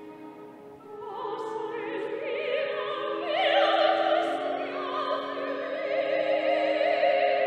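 Operatic soprano singing with wide vibrato over an orchestra playing held chords. The voice enters about a second in and grows louder, holding high notes around the middle and near the end.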